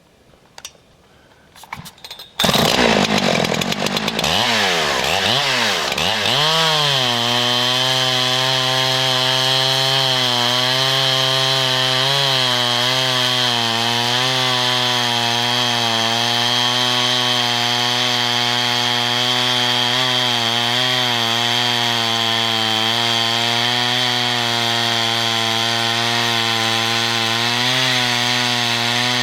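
Chainsaw on a chainsaw lumber mill starting about two seconds in, revving up and down briefly, then running at steady high speed with slight wavering as it rips lengthwise through a log.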